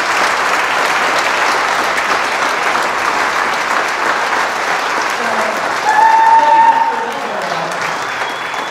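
Audience applauding steadily. About six seconds in, a single loud held cheer from the crowd rises above the clapping, and the applause thins out near the end.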